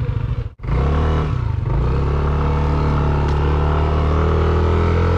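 Motorcycle engine running, broken by a brief dropout about half a second in, then holding steady revs with a slight rise and dip in pitch soon after.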